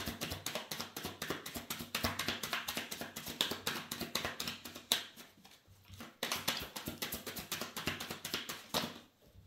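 A deck of tarot cards being shuffled by hand: a rapid run of soft card-on-card slaps and flicks. The shuffling pauses briefly about five seconds in, then starts again.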